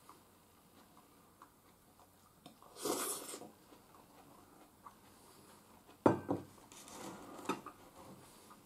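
Nameko mushroom soup slurped from a bowl about three seconds in, then a sharp knock about six seconds in as the porcelain bowl is set down on the table, followed by a few lighter clinks of dishes and chopsticks.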